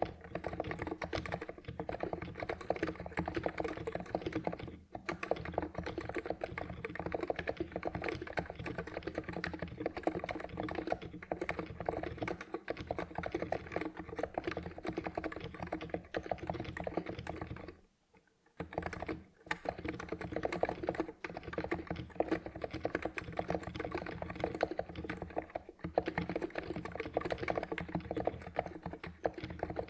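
Typing on a Cox Endeavour 50g electro-capacitive (Topre-clone) keyboard with PBT keycaps, in a dense, steady stream of keystrokes. The typing breaks briefly about five seconds in and for a second or so a little past halfway.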